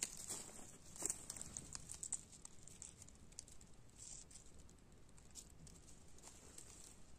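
Faint rustling and crackling of dry leaf litter and twigs, stepped on by rubber boots and then parted by hands on the forest floor while morel mushrooms are picked. The crackles are loudest at the start and about a second in, then turn sparse.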